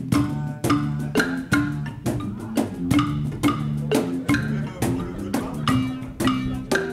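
Background music with a steady beat of sharp, clicky percussion over a repeating bass line and pitched notes.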